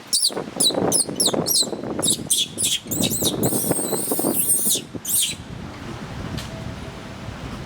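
A small animal squeaking: about a dozen shrill, high-pitched squeaks in quick succession, bunching into a run of squeals in the middle, then stopping about five seconds in, over a low rustling background.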